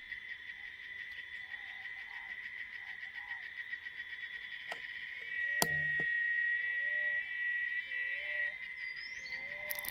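Night chorus of insects trilling steadily, with a frog giving short repeated calls about once a second. A single sharp crack about halfway through.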